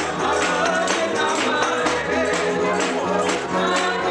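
Live gospel worship music: singing voices over a bass line, with a tambourine shaken and struck in a steady beat.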